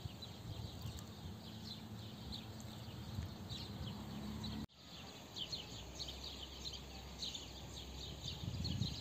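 Small birds chirping in quick, short, repeated calls, over a low rumbling background.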